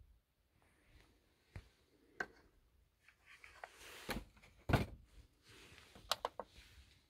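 Scattered knocks, clicks and rustles of hands handling things in a toolbox: a clear plastic parts case and a screwdriver. The loudest thud comes a little under five seconds in, and a quick run of clicks follows about a second later.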